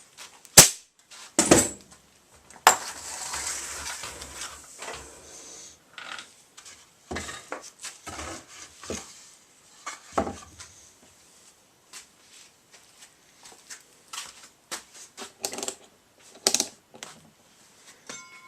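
Clattering and knocking of hard objects being handled: a run of sharp clicks and clanks, the loudest about half a second in, with a rough scraping stretch of about three seconds starting near the third second.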